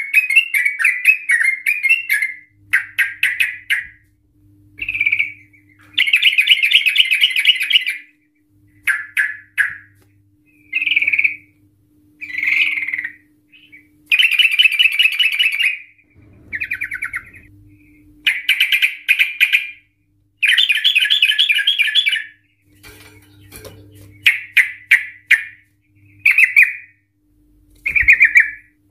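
Yellow-vented bulbul singing a run of rapid, bubbly chattering phrases, each one to two seconds long with short pauses between. These are the rolling 'ropel' phrases that bird keepers play to get other bulbuls singing.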